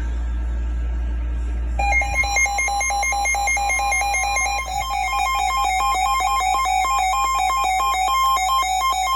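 Weather radio broadcast hiss over a steady low hum. About two seconds in, a loud run of electronic alert tones begins, switching rapidly between pitches. It is the Emergency Alert System signal that precedes a broadcast warning.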